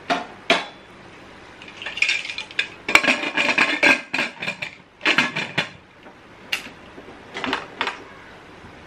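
Aluminium pressure cooker being closed: the lid is fitted into the pot and twisted shut by its handle, with several short spells of metal clinking and scraping.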